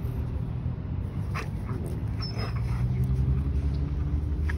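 A golden retriever making a few short vocal sounds about one and a half to two and a half seconds in as it rolls on its back in the grass, over a steady low rumble that grows stronger in the second half.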